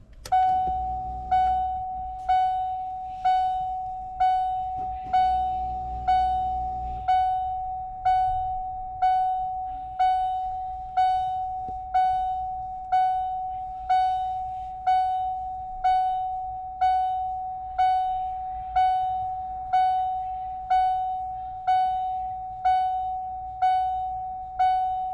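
1993 Ford Explorer's dashboard warning chime sounding with the ignition on and the engine off: one ding on the same pitch about once a second, each dying away before the next. A low hum runs beneath it for the first several seconds.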